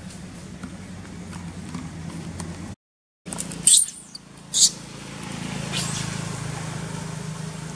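Baby long-tailed macaque giving two short, high-pitched squeals about a second apart, over a steady low hum.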